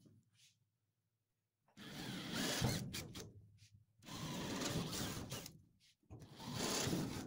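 Cordless drill with a 3/16-inch bit enlarging pilot holes in a steel car body panel, run in three short bursts that each wind down as the trigger is let go.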